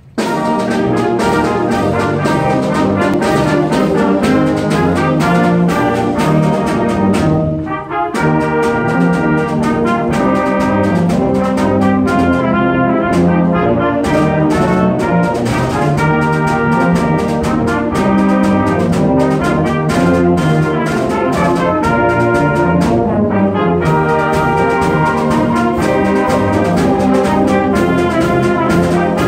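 A school wind ensemble playing, with trumpets, trombones and clarinets over timpani and bass drum. The full band comes in loudly at the very start and breaks off briefly about eight seconds in before carrying on.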